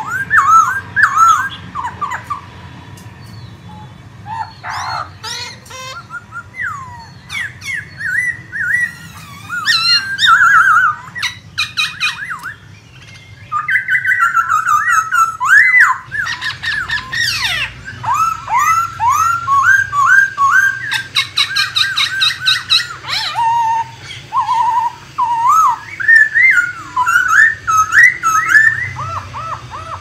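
Black-throated laughingthrush singing: a long, loud run of varied whistled phrases made of quick rising and falling notes, with some harsher squawking notes mixed in.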